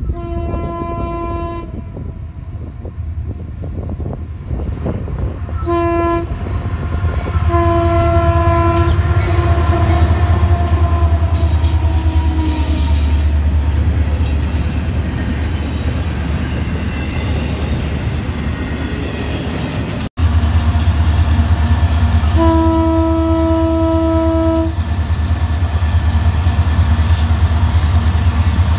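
Horn of a Union Pacific GE AC4400CW locomotive, a single harsh one-note blare. It sounds a short blast, a shorter one, then a long blast that falls in pitch as the train passes, and later another blast of about two seconds. Underneath is the heavy rumble of the diesel locomotives and rolling freight cars.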